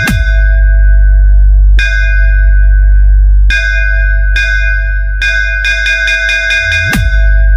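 DJ bass-test electronic track: a deep, sustained sub-bass under repeated ringing, bell-like metallic hits that come in quick clusters. A short bass sweep falls at the start and another rises near the end.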